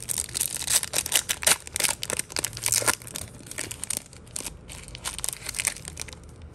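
Crinkly plastic packaging being handled, a dense run of sharp crackles that thins out after about four seconds and stops near the end.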